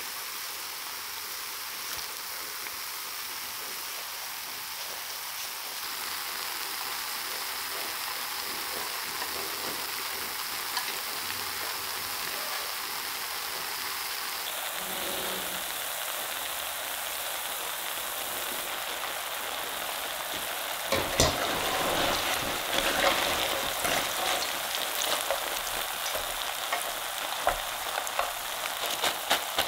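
Potato sticks deep-frying in a pot of hot oil, a steady sizzle. From about twenty seconds in, sharp clicks and knocks come over it as chopsticks and a wire skimmer work among the sticks.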